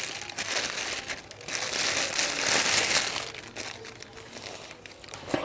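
A thin plastic bag crinkling as it is pulled off a camera lens, loudest in the middle and dying away near the end.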